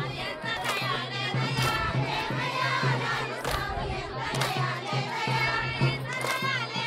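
Many voices singing and shouting together as a crowd of women dances in a circle, with a sharp stroke recurring about once a second underneath.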